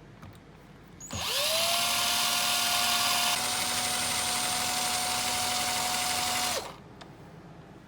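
Electric drill motor spinning up quickly about a second in, running steadily for about five and a half seconds, then stopping.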